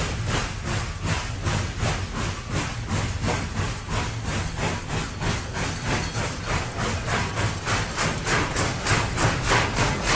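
Steam locomotive chuffing: an even beat of exhaust puffs about four a second, growing louder and a little quicker near the end.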